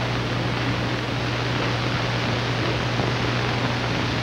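Steady hiss with a low mains-type hum from an old television soundtrack transfer, with no distinct sound events standing out.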